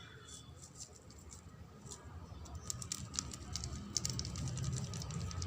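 Noodles cooking in a frying pan: scattered light clicks and crackles, becoming busier about halfway through.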